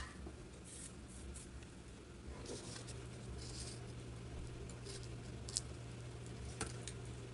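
Faint scattered clicks and rustles of small parts being handled on a workbench, with one sharper click about five and a half seconds in, over a steady low electrical hum.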